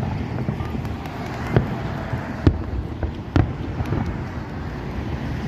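Distant fireworks going off: a few sharp bangs, the loudest three about a second apart, over steady wind noise on the microphone.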